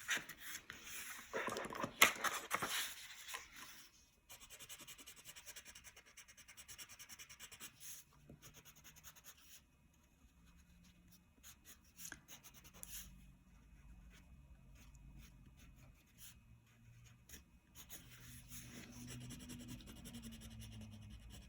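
Crayon rubbing back and forth on paper while colouring in, a few louder strokes in the first seconds and then fainter, quicker scratching with scattered ticks.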